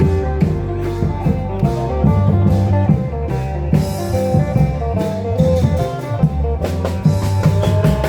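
Isan klong yao (long-drum) band playing procession music: drums beating a steady rhythm under a melody line.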